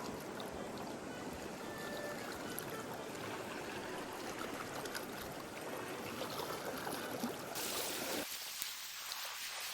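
Steady rushing water noise. About eight seconds in it changes abruptly to a thinner, higher hiss.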